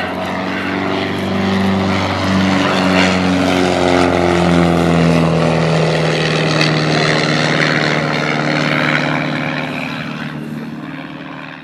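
Pitts Special S1-S biplane's engine and propeller running at high power through aerobatic manoeuvres, heard from the cockpit with wind rush over the microphone. The engine note wavers slightly in pitch, grows louder about two seconds in and fades away near the end.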